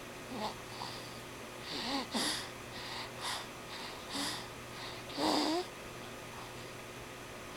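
Snoring: a run of short, irregular snorts and wheezy breaths, the loudest one near the end, after which it stops.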